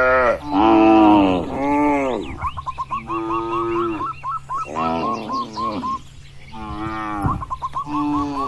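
Several cattle mooing, long overlapping calls one after another, the loudest about a second in. Between the moos a short high call repeats several times a second.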